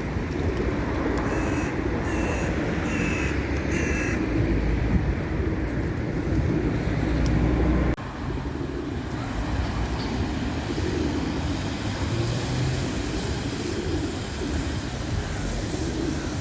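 Steady rumble of road traffic, with four short high chirps from small birds in the first four seconds. The sound cuts abruptly about halfway through and the same rumble carries on.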